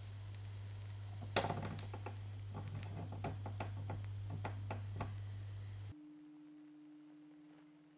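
Faint, scattered ticks and crackles from flatbread dough cooking in a nonstick frying pan, over a steady low hum. The hum cuts off suddenly about six seconds in.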